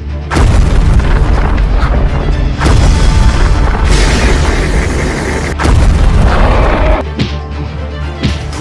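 Loud booming, explosion-like sound effects over background music. The rumble starts about a third of a second in, grows brighter and hissier around the middle, and drops away about seven seconds in, leaving the music.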